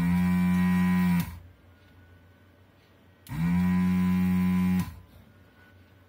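Pro'sKit SS-331H desoldering gun's vacuum pump running in two bursts of about a second and a half each, sucking molten solder from a tactile switch's through-hole pins. Each burst is a buzzing hum that rises in pitch as the pump starts and drops as it stops.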